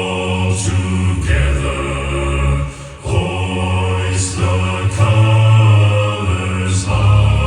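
Choral singing over a low sustained drone, with held chords that change every second or two.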